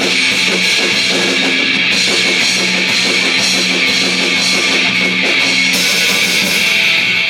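Live rock band of drums, electric guitars and bass playing loudly, with cymbals ringing throughout; the music stops right at the end.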